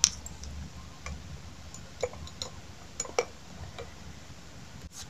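Handling noise from a small toy and bracelet being fiddled with: a sharp click right at the start, then a few scattered lighter clicks and taps.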